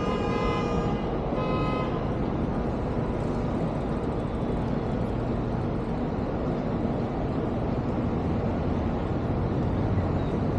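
A vehicle horn honks twice in the first two seconds, the first honk about a second long and the second shorter, over a steady wash of city street traffic noise.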